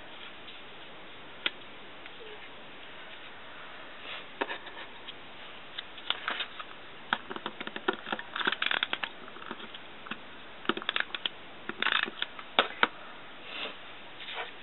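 Paper handling: small paper header pieces being stuck and pressed down onto notebook pages, heard as scattered short rustles and taps. They come sparsely at first and cluster through the middle and second half.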